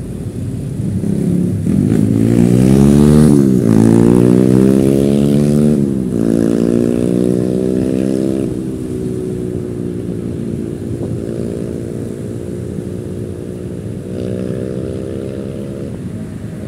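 Motorcycle engine accelerating through the gears: its pitch climbs, drops sharply at each of three gear changes about two and a half seconds apart, then holds steadier as the bike cruises.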